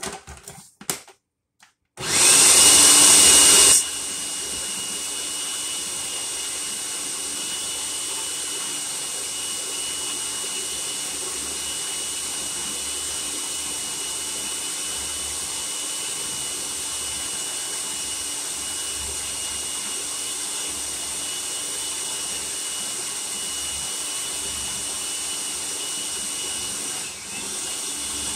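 A few clicks, then a countertop food processor's motor starts about two seconds in and runs steadily with a whine, mixing pie dough after the last of the water has gone in. It is loudest for its first two seconds and dips briefly near the end.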